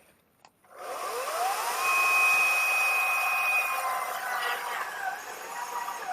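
Electric chainsaw motor starting about a second in and spinning up with a rising whine, then running at a steady high speed. Near the end the pitch wavers and dips slightly.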